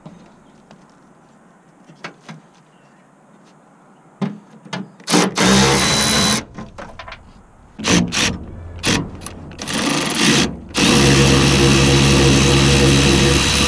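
Handheld power drill spinning a small socket on bolts. It is quiet for about five seconds with a few faint clicks, then gives a short run, several quick trigger bursts, and a longer steady run of about three and a half seconds near the end.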